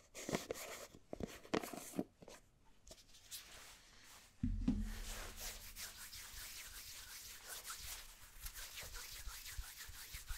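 Hair gel being rubbed and worked with the fingers close to the microphone: scattered soft sticky clicks, then a low thump about four and a half seconds in and steady close rubbing after it.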